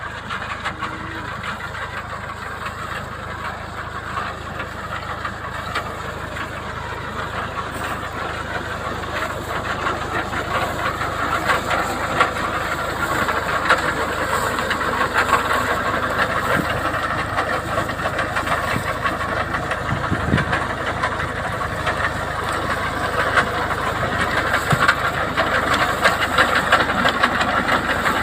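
A 40 hp tractor running under load as it pulls a potato harvester through the beds, with a dense, continuous rattle of machinery over the engine. The sound grows gradually louder as the machine draws nearer.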